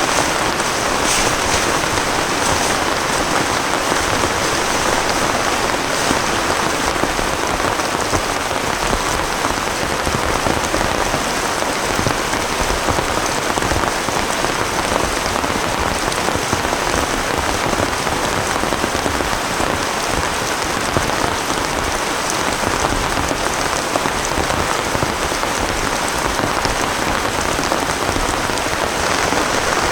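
Heavy rain falling steadily, a dense, even downpour with no let-up.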